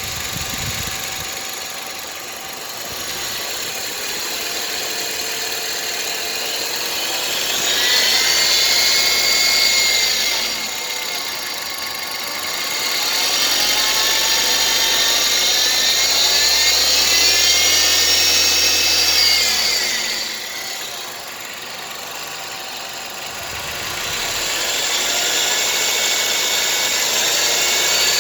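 Engine idling and speeding up three times, with a high whine that rises and falls in pitch along with the engine speed.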